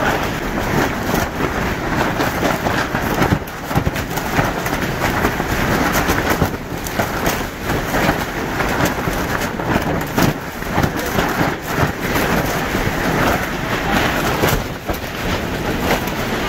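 Strong gusting wind, 40 to 60 mph, buffeting the microphone and rattling and flapping the storm-damaged polyethylene sheeting of a greenhouse roof, a loud continuous roar broken by irregular crackles.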